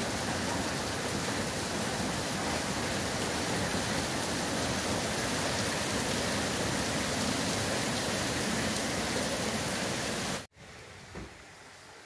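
Torrential rain mixed with hail pouring down, a dense steady hiss. It cuts off abruptly near the end, giving way to a much quieter hiss.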